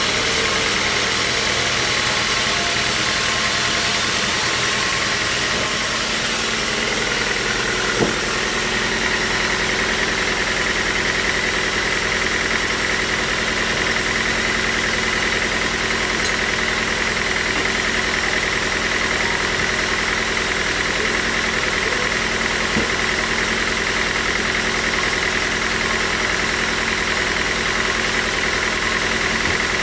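Band sawmill machinery running steadily, a constant mechanical drone with a high whine that grows stronger about eight seconds in; a single sharp knock at about the same moment.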